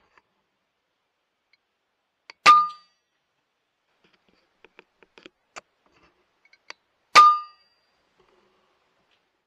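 Two shots from an FX Impact M3 .22 PCP air rifle, each a sharp crack with a brief metallic ring, about four and a half seconds apart. A few light mechanical clicks come between them.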